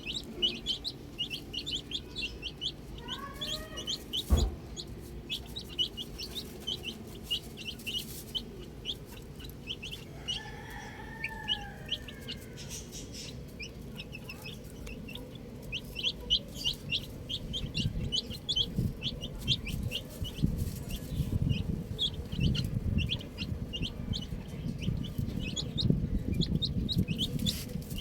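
Domestic chicks peeping, many short high chirps in quick succession throughout. There are two lower, drawn-out calls, one about 3 seconds in and one around 11 seconds, and a single knock just after 4 seconds. A low rumbling noise rises in the second half.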